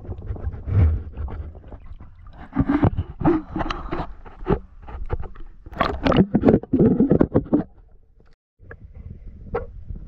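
Muffled water sloshing with irregular knocks and scraping of a camera being moved around underwater, in uneven bursts that drop out briefly about eight seconds in.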